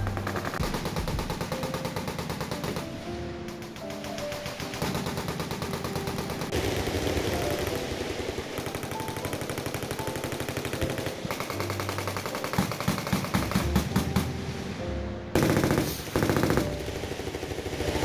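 Many machine guns firing at once down a range: a dense, continuous rattle of rapid automatic fire. About fifteen seconds in, a louder, heavier stretch of fire lasts for about a second and a half.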